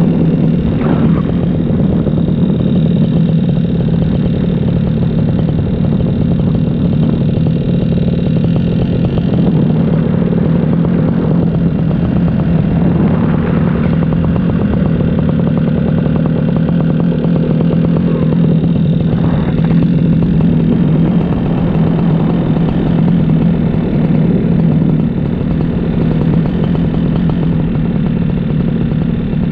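Paramotor engine and propeller running steadily in flight, with a strong steady drone and no change in loudness.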